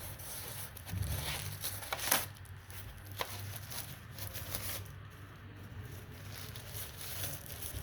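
Packaging crinkling and rustling with scattered clicks and taps as a video door phone unit is taken out of its box.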